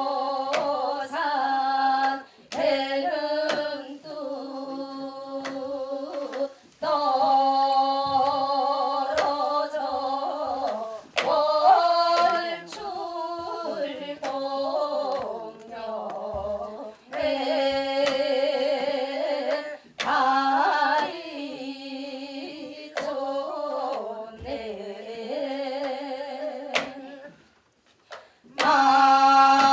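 Korean Seodo sori (northwestern folk song) sung solo, in phrases of a few seconds with long held, wavering notes and brief breaks between them. Sharp percussive strokes fall here and there among the phrases, and the voice stops briefly near the end.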